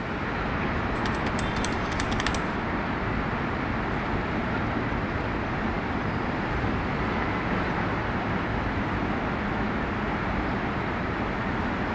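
Steady city road traffic: cars running along a wide street, with a few light ticks between one and two seconds in.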